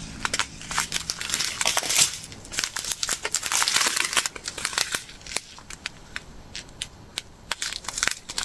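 Small plastic bags of square diamond-painting drills crinkling as they are handled, with many sharp clicks. The handling is busiest in the first half and quieter and sparser later.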